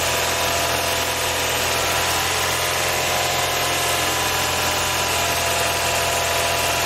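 Car engine running steadily, held at about 2500–3000 rpm for the unloaded charging-system test, where the alternator's output is checked with headlights and AC off.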